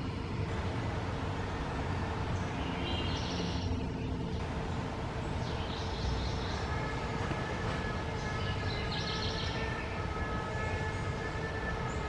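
Steady low rumbling background noise with a constant hum, over which come short, high bird calls about three, six and nine seconds in; from about six seconds a few steady high tones join in.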